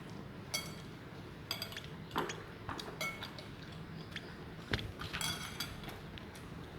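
Lovebird chick being hand-fed: a few short, high chirping bursts of begging calls, mixed with small clicks and taps, the sharpest about two and nearly five seconds in.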